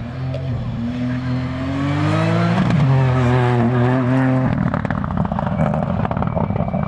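Rally car engine at full throttle, its pitch climbing and then holding high. About four and a half seconds in the throttle comes off and the steady note gives way to rapid crackling.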